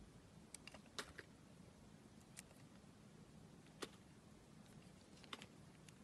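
Utility knife blade cutting into a bar of clear soap studded with coloured soap dots: scattered crisp clicks and crackles as the blade bites and pieces break. The loudest snaps come about a second in and just before four seconds, over a faint low hum.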